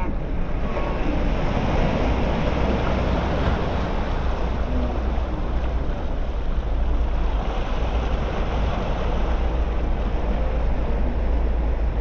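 Ocean surf washing onto the beach, a steady rush, with wind buffeting the microphone and adding a heavy low rumble.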